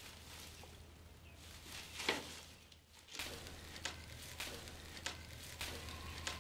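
Scissors snipping through bundles of dried vetiver root: a run of short, crisp cuts about every half second, over a faint low hum.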